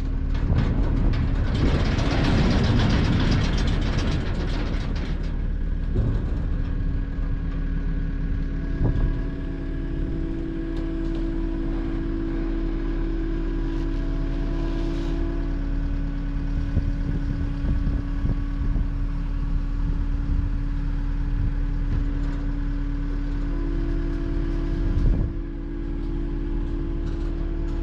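Diesel skid steer engine running steadily. A loud rushing noise rides over it for the first five seconds.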